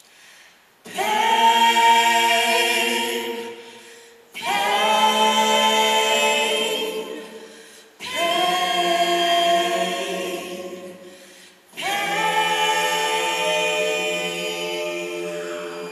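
A cappella group of mixed women's and men's voices singing four long held chords, each coming in sharply and fading away over three to four seconds.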